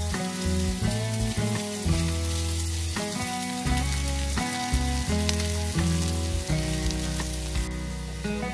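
Chopped onion sizzling steadily as it fries in vegetable oil in a non-stick pan, stirred with a silicone spatula, under background music with a bass line.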